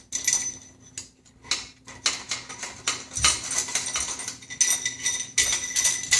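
Metal washers clinking and scraping on a long threaded bolt and against the headset cups as they are slid on and lined up: a run of irregular clicks with a bright metallic ring.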